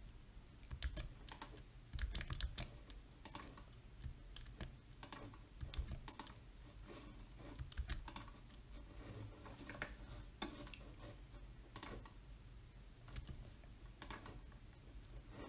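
Scattered, irregular clicks of a computer mouse and keyboard keys, faint, as decoration stamps are placed and undone with Ctrl+Z.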